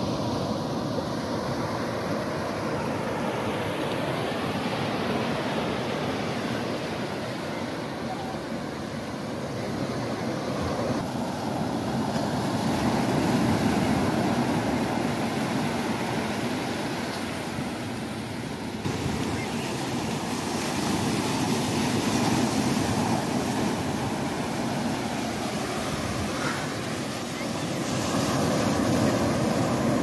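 Ocean surf breaking on a beach: a continuous wash of waves that swells louder and eases back every several seconds.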